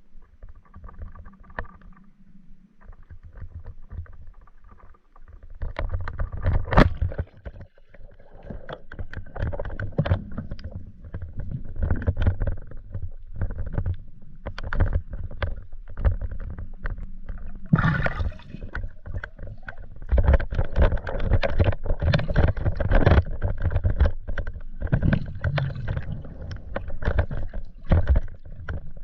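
Muffled water sounds heard through an underwater microphone: sloshing and gurgling with many irregular knocks and clicks, one sharp click about seven seconds in.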